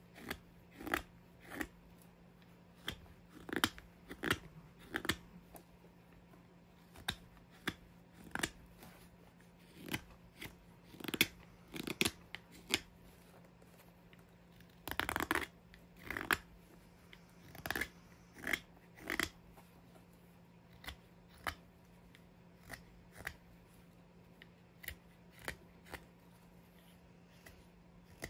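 Mora 106 carving knife slicing shavings from green oak while roughing out a spoon: short, irregular cuts, one or two a second, with a couple of longer strokes near the middle.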